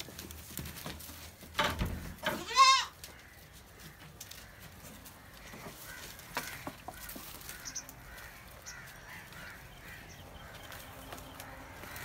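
A goat bleats once, a short wavering cry about two and a half seconds in, just after a brief rustling knock; low farmyard background follows.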